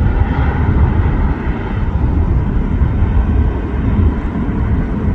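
Airbus A380-800 airliner's four jet engines at takeoff power: a loud, steady, deep rumble, dipping slightly about a second and a half in.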